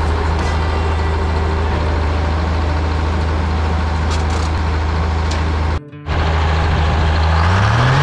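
Old Detroit Diesel two-stroke engine powering a sawmill, running steadily. Near the end it revs up, its pitch rising and then holding at a higher speed as the throttle is opened.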